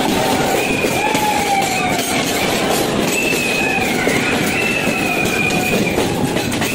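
Passenger train running through a railway tunnel: steady rumble of wheels on the rails, with high wheel squeal that wavers in pitch as the train rounds a curve.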